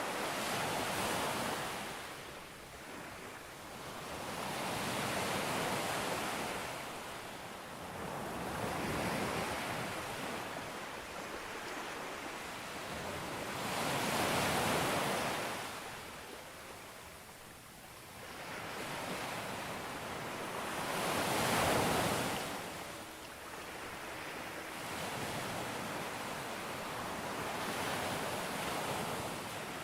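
Sea waves breaking and washing onto a beach one after another, each surge swelling and falling away every four to seven seconds. The strongest breaks come about halfway through and again about three quarters of the way through.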